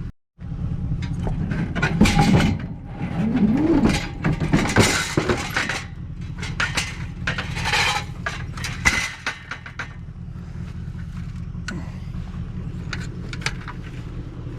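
Scrap metal clanking and clattering as pieces are handled and tossed into a trailer, in irregular bursts, with a scrape near 4 s, over a steady low hum.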